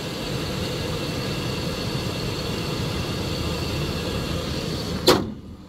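2005 Chevrolet Express box truck's Vortec gasoline engine idling steadily with a thin high whine, then a loud slam about five seconds in as the hood is shut, after which the engine is heard more muffled.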